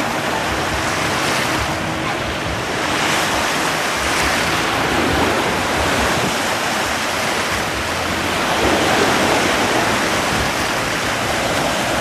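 Sea surf washing in the shallows, an even rushing noise that swells louder a few times as waves come through.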